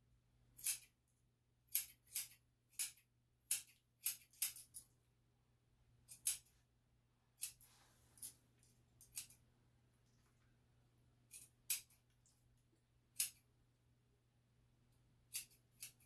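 Grooming scissors snipping through a dog's coat: about seventeen crisp, sharp snips at an uneven pace, sometimes two or three in quick succession, with pauses of up to two seconds between.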